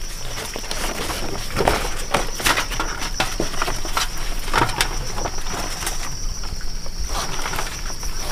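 A steady, high insect trill with many irregular clicks and knocks throughout.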